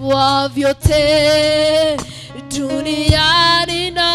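A woman singing a slow gospel worship song through a microphone, holding long notes; the words are "Creator of all things on earth and in heaven, we bow down".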